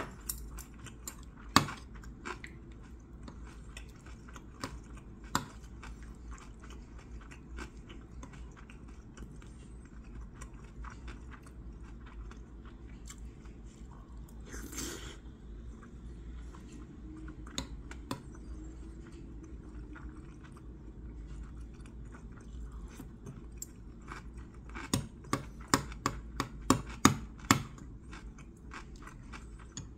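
Close-up chewing of food, with scattered sharp clicks of metal chopsticks and a spoon against the dishes. A short noisy burst comes about halfway, and a quick run of louder clicks near the end.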